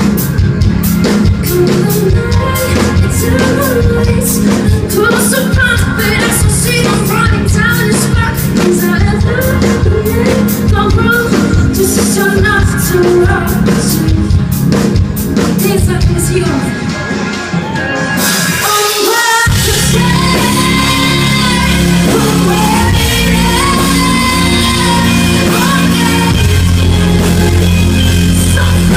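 A rock band playing live in a large hall, with drums, bass, guitar and synth under a woman's singing. About two-thirds of the way through, the drums drop out and a steady, sustained bass and synth carry on.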